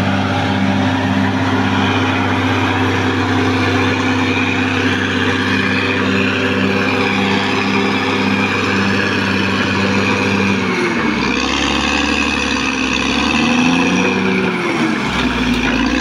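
Caterpillar D6R XL bulldozer's diesel engine running steadily while the blade pushes earth. About two-thirds of the way in, its pitch drops, then dips and recovers twice as the machine takes and sheds load.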